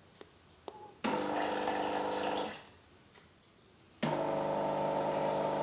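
DeLonghi La Specialista espresso machine's pump running in two short bursts during its descaling cycle, each starting abruptly with a steady hum and dying away after about a second and a half, pushing descaling solution and water through the machine.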